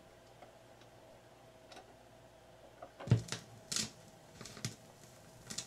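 Fisher 501 record changer finishing its auto-start cycle: a faint steady hum, then about three seconds in a thump as the stylus sets down on the record, followed by a few sharp clicks and pops.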